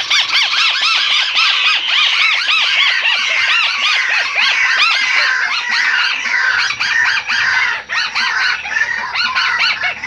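White-browed crake calling: a loud, fast, dense chatter of overlapping arched notes that slowly drifts lower in pitch.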